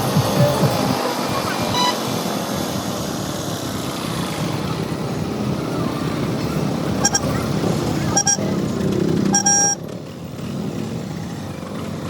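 KTM 200 Duke single-cylinder motorcycle riding through traffic, its engine running under a steady rush of road and wind noise. Short vehicle horn honks sound about four times, near 2 s, 7 s, 8 s and 9.5 s in, the last one a little longer.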